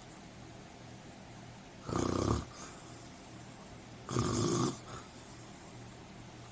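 Two loud snores about two seconds apart, each lasting about half a second, over a faint steady hum.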